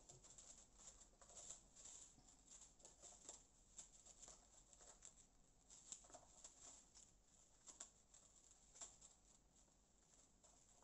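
Near silence with faint, scattered clicks and rustles of someone rummaging through bead containers.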